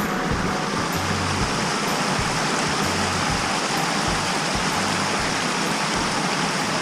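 Small forest stream rushing steadily over rocks, with low thuds of footsteps about twice a second.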